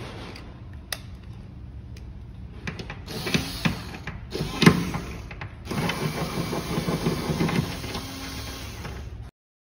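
Small cordless electric screwdriver whirring as it drives a bolt into a wooden board, in short bursts at first and then running steadily for the last few seconds.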